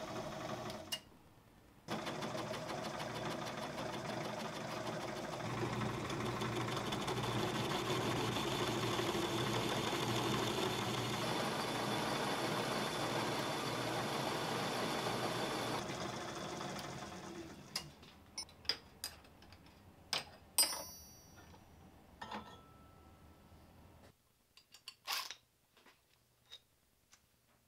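Homemade belt-driven metal lathe running steadily, turning an aluminium bar between centers as the cutting tool takes a cut. It winds down about 16 seconds in, followed by a few sharp clicks and knocks as the work is handled.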